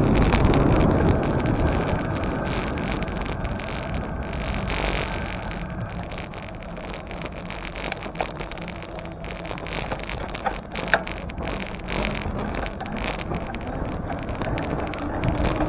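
Wind rushing over the microphone with tyre and road noise from a bicycle being ridden, easing in the middle and building again near the end. There is a sharp click about eleven seconds in.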